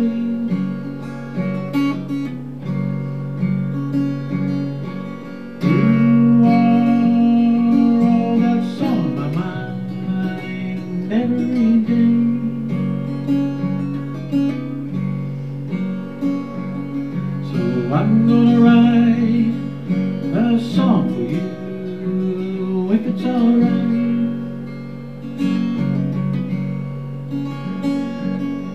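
Steel-string acoustic guitar strummed, chords ringing out steadily one after another.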